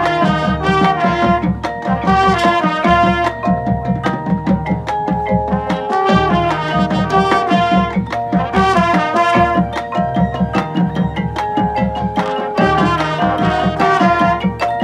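Marching band music, with marimbas and other mallet percussion playing quick runs of repeated notes over held tones and a steady low pulse.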